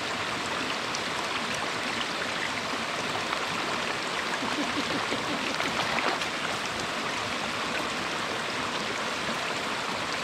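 Steady rush of flowing creek water, with a splash about six seconds in as a hooked trout leaps out of the surface.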